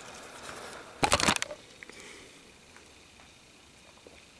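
Handling noise as a pistol is taken out of its hard plastic case: a quick run of sharp clicks and knocks about a second in, then a few faint ticks.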